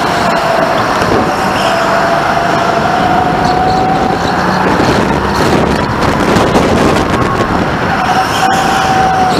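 Go-kart running at racing speed, heard from on board: a steady rushing drive noise with a thin motor whine that rises and falls slightly as the driver works the throttle through the corners.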